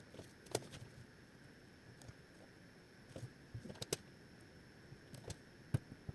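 Faint, scattered clicks and light knocks, as of small parts of a cordless stick vacuum's floor head being handled during repair. The sharpest clicks come about half a second in and near the end, with a cluster just before the four-second mark.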